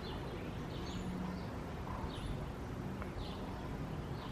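Outdoor ambience: a steady low rumble with a faint hum, and birds chirping briefly, about once a second.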